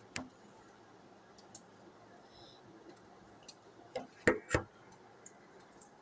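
A sharp click just after the start, then three louder knocks in quick succession about four seconds in, over a faint steady hiss.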